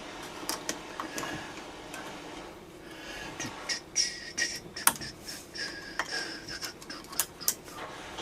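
Irregular sharp clicks and light metallic clinks from hand work on a chainsaw's flywheel and magneto. Some clinks leave a brief high ring, and they come more often in the second half.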